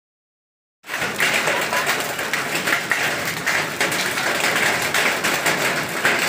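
Hail falling: a dense, steady rattle of countless small hailstone impacts mixed with a rain-like hiss, starting about a second in after a brief silence.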